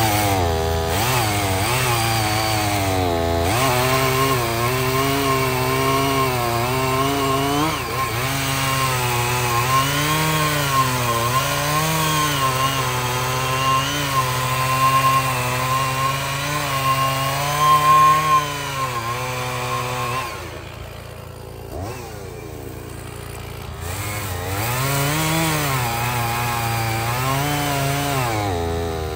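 Two-stroke Stihl chainsaw cutting through firewood logs at full throttle, its engine note rising and dipping every second or two as the chain loads and frees in the wood. About two-thirds of the way through it drops back, quieter and lower, for a few seconds, then revs up again.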